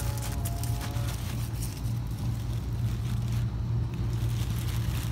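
A motor running nearby with a steady low hum.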